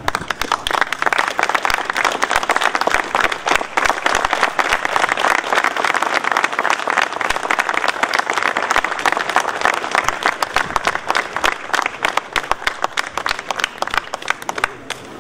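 Crowd applauding steadily, a dense patter of many hands clapping that starts at once and dies away near the end.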